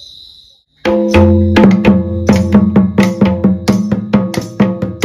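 Two-headed wooden barrel drum (Santali tumdak') struck by hand in a quick, even Sohrai rhythm, starting about a second in, after a short stretch of insect chirring that cuts off.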